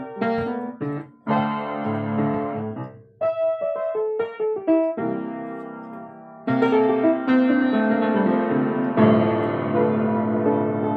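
Piano playing without other instruments: a few quick notes, then held chords with a short run of single notes between them.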